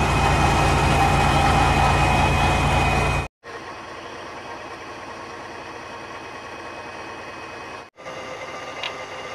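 A military truck's engine running close by, loud with a fast low pulsing. It cuts off suddenly about three seconds in and continues as a quieter, steadier engine hum, with a single sharp metallic click near the end.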